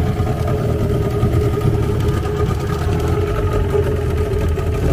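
Small river longboat's engine running steadily with an even, unchanging hum.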